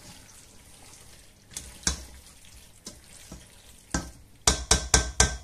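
Penne in tomato sauce being stirred with a spoon in a stainless steel pot: soft wet scraping and squelching with a few knocks, then a quick run of about six sharp knocks of the spoon against the pot near the end.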